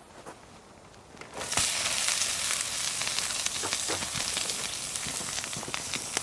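Close campfire crackling and hissing, with many small sharp pops, starting suddenly about a second and a half in.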